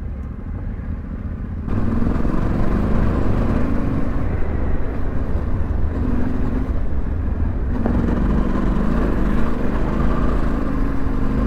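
Yamaha Ténéré 700's parallel-twin engine riding at part throttle, getting clearly louder about two seconds in as the throttle opens, then its pitch rising and falling with the throttle.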